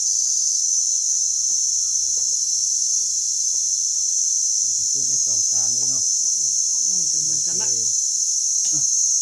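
Steady, high-pitched drone of insects in the forest, with men's voices talking quietly for a few seconds in the middle.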